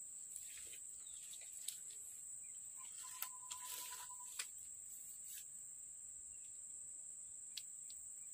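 Steady high-pitched drone of insects in tropical forest, with a few sharp clicks scattered through it and a brief one-pitch note lasting about a second, a little after three seconds in.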